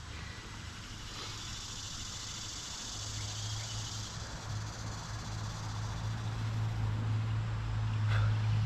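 Outdoor ambience: a steady high insect chorus, with a low steady hum coming in about three seconds in and slowly growing louder.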